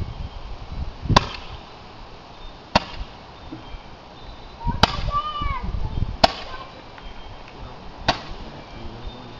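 Handheld Roman candle firing: five sharp pops, one every second and a half to two seconds, each launching a burning ball.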